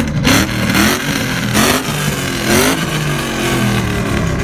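Ford Mustang's loud exhaust as the engine is revved in several quick blips, each rising and dropping back, then settling to idle near the end.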